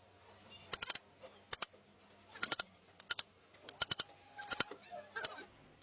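Sharp light metallic clicks and clinks in short clusters, about one every half second to a second: hand tools or small metal parts being handled or tapped during a differential axle seal job.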